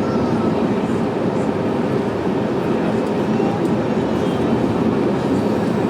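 Steady, loud cabin noise inside an Airbus A320neo in flight after takeoff: the even rumble and rush of the engines and airflow heard from a passenger seat.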